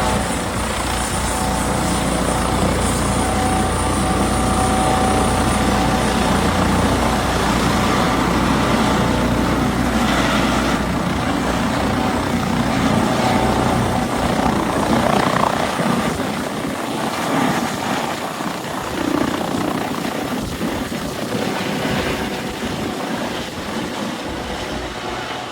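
Airbus H145 helicopter in flight: steady rotor and turbine sound with a deep rumble and a few steady tones. About halfway through the deep rumble drops away, leaving a rougher, uneven noise that eases slightly near the end.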